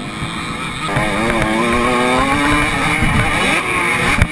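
Motocross bike engine heard from an onboard camera, climbing steadily in pitch as it accelerates from about a second in, then dipping and rising again near the end, over low wind rumble on the microphone.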